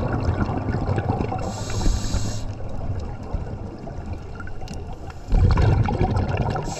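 Water sloshing and gurgling, with a louder surge about five seconds in.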